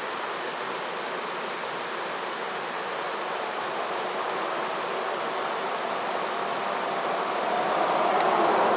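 Rushing water of a freezing mountain stream, a steady hiss that swells louder near the end.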